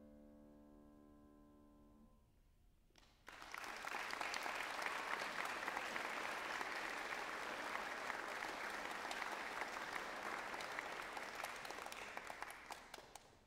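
A Steinway grand piano's closing chord dies away, and about a second later an audience bursts into applause that runs for roughly ten seconds and tails off near the end.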